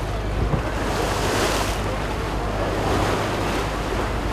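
Open-sea wind and waves washing past a moving boat, with wind buffeting the microphone and a louder rush about a second in. A steady low hum runs underneath.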